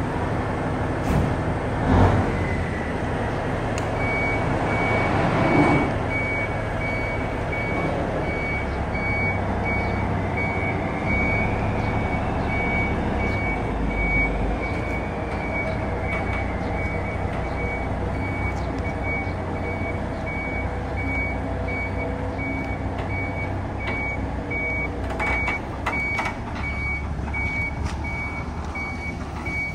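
Grove TM1500 truck crane's diesel engine running as the crane backs up, with its reverse alarm beeping steadily from about four seconds in.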